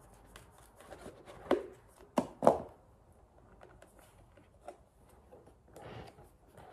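Handling sounds of a small cardboard box being opened with scissors: light clicks and scrapes, with three sharper knocks a second and a half to two and a half seconds in, and a short soft scrape near the end as the box end is worked open.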